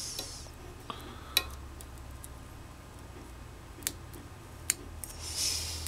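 Small fly-tying scissors snipping and clicking as they trim the excess raffia off a hopper fly in the vise: a few sharp, separate clicks, with a short rustling hiss about five seconds in.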